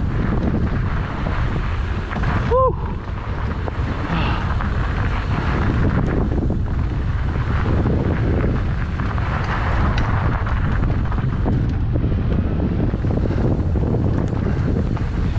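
Wind buffeting the microphone and mountain bike tyres rumbling over a dry dirt singletrack while riding at speed. A brief high squeak sounds about two and a half seconds in.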